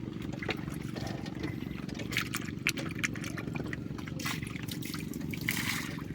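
Water trickling and dripping, with scattered small clicks and splashes and a short burst of splashing near the end, over a steady low hum.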